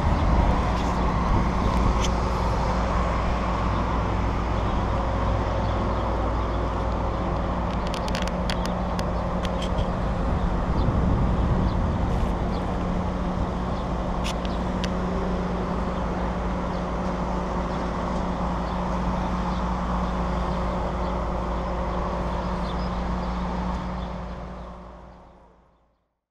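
Idling vehicle engine: a steady low rumble with a constant hum, with a few light clicks around the middle. It fades out over the last two seconds.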